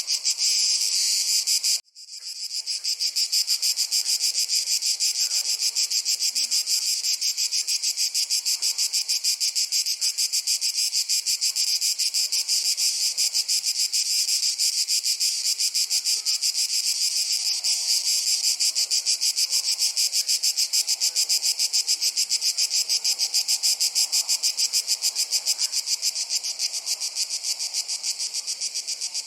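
Crickets chirping in a rapid, even, high-pitched pulse. About two seconds in, the sound cuts out for an instant and then swells back.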